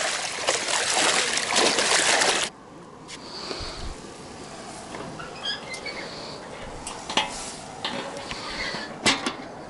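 Rushing river water, a loud steady hiss that cuts off suddenly about two and a half seconds in. It gives way to a much quieter background with a few faint clicks and short high chirps.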